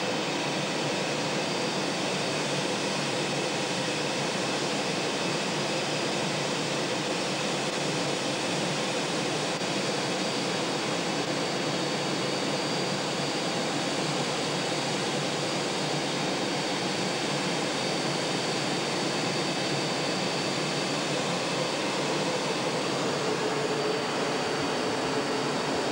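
Steady jet engine and air noise heard from inside the cockpit of a two-seat A-4 Skyhawk in flight: an even hiss with faint steady whines, unchanging throughout.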